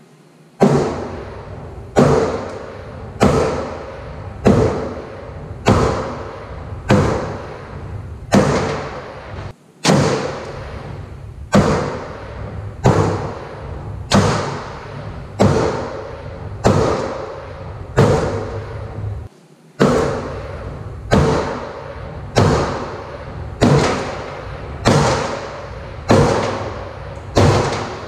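Sledgehammer blows on a steel bracket on a Kenworth truck frame, knocking off rusted parts. About twenty even strikes come roughly one every 1.2 seconds, each with a brief metallic ring.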